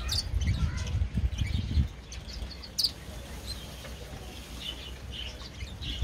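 Small aviary birds, finches and parakeets, chirping here and there with short high calls. In the first two seconds a bird's wings flutter close by, with a sharp click a little before the middle.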